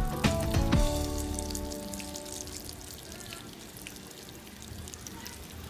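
Tuna patties sizzling and crackling in hot oil in a frying pan, a steady dense crackle. Strummed guitar music dies away over the first second or two.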